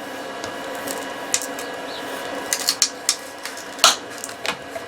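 Scattered clicks and light scrapes of a printed figure being pried off a BuildTak-covered 3D printer bed, with a sharp click near the end, over a steady faint hum.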